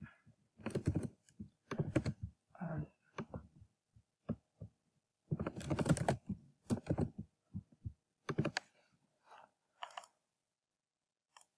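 Typing on a computer keyboard in short bursts of keystrokes, thinning out to a few scattered clicks in the last seconds.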